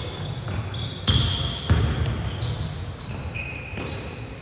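A basketball bouncing on the court, with sharp bounces about a second in and again shortly after, and sneakers squeaking on the floor throughout.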